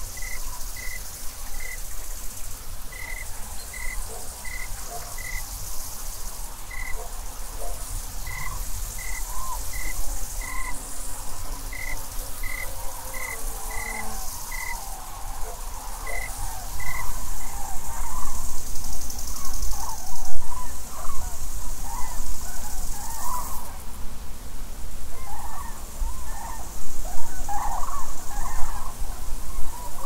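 Meadow insects chirring in a steady high hiss, while a small bird repeats a short high note about twice a second through the first half. Calls of common cranes come in and grow louder from about halfway, over a low wind rumble.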